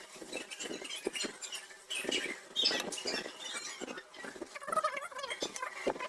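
Irregular small scratching and clicking as a soldering iron tip and fingers work over the pins of a USB port on a USB hub circuit board, resoldering a joint whose solder is coming loose.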